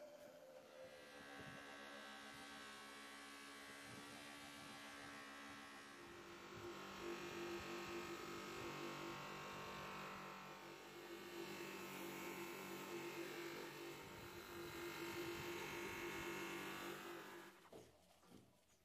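Electric bench grinder running a buffing wheel, a steady motor hum, as polishing compound is applied and then the steel axe head is polished against the wheel; the sound grows louder from about six seconds in. It cuts off suddenly near the end.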